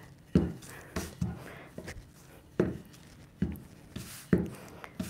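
Wooden rolling pin rolling out shortcrust pastry on parchment paper over a countertop, with a soft knock at each stroke, about six in all, roughly one a second.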